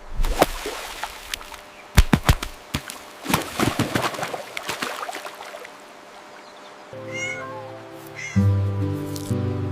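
A run of sharp knocks and clicks, then from about seven seconds in a cat meows twice over steady background music.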